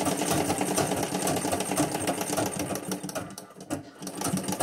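Treadle-powered sewing machine stitching fabric: a rapid, even clatter of the needle and feed mechanism. It slows and nearly stops about three seconds in, then picks up again.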